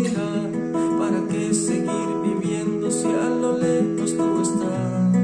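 Acoustic guitar playing a slow instrumental passage: sustained plucked notes and chords, with the bass notes shifting lower near the end.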